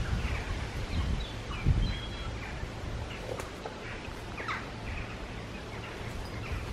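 Birds chirping and calling in short, scattered notes, over a steady low rumble of outdoor background noise.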